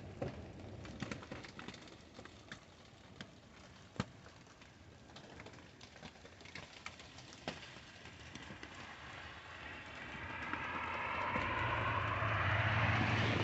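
Outdoor ambience in a snowy garden: scattered light ticks and taps throughout, then a rushing noise with a low hum that swells steadily louder over the last few seconds.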